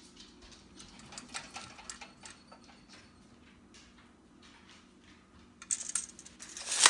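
Handling noise: scattered light clicks and taps, then a louder rustling scrape that builds near the end.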